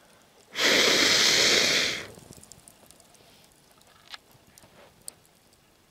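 A person blowing hard on glowing campfire coals: one strong blow lasting about a second and a half. A few faint crackles from the fire follow.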